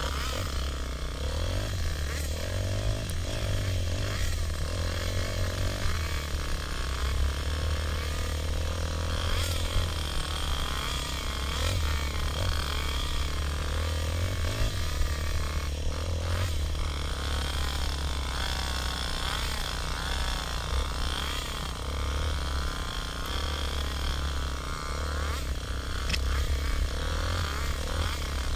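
Dirt bike engine, heard close up from the bike being ridden, revving up and down again and again as the throttle is worked along a rough bush trail, over a steady low rumble.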